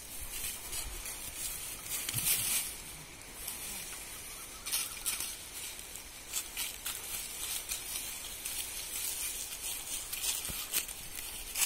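A goat biting and gnawing at a jackfruit's rind on the tree: irregular crisp crunches and scrapes, loudest about two seconds in.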